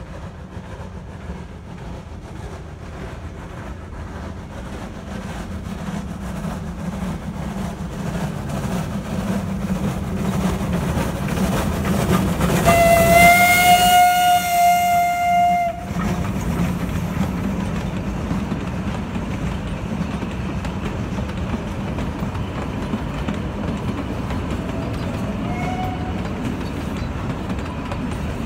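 Climax geared steam locomotive G42, built in 1926, approaching and passing close with a train of wooden passenger carriages, its running sound growing louder. About halfway through it sounds its steam whistle once for about three seconds, with a hiss of steam. After that the carriages roll steadily past.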